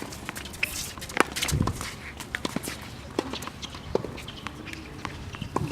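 Tennis being played: irregular sharp pops of tennis balls struck by racquets and bouncing on the court, with players' footsteps.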